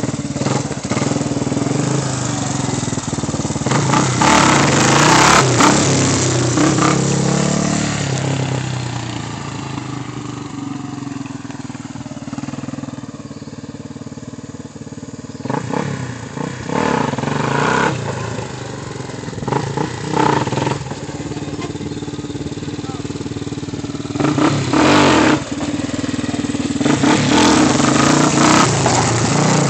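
Yamaha Raptor 350 quad's single-cylinder four-stroke engine revving up and dropping back again and again as it is ridden and pulled into wheelies, with a quieter, steadier stretch in the middle.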